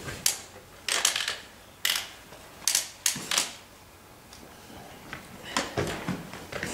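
Clothing rustling and scraping as a hooded jacket is handled and adjusted: a quick run of short, sharp rustles over the first three and a half seconds, then a few softer ones near the end.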